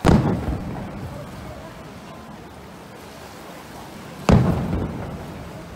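Two aerial firework shells bursting about four seconds apart, each a loud bang followed by a rumbling echo that dies away over about a second.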